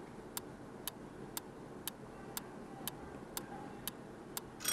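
Countdown-timer sound effect: a clock ticking evenly, about two ticks a second. Near the end a ringing chime sounds as the time runs out.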